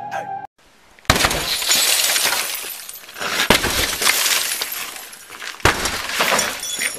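A glass-panelled front door being smashed in during a forced entry: three heavy strikes about two seconds apart, with glass breaking around each.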